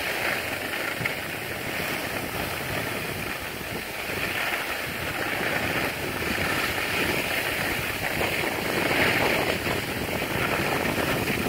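Skis sliding and scraping over packed snow, heard as a steady hiss that swells and eases with the turns, with wind rushing over the microphone.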